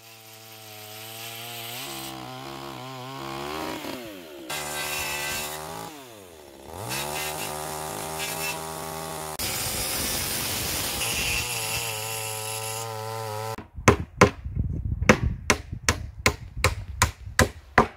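Chainsaw running and cutting wood, its engine note dropping and rising several times as it bites and revs. It stops about three-quarters of the way through, and a quick run of hammer blows follows, about three a second, as boards are nailed onto a wooden tabletop.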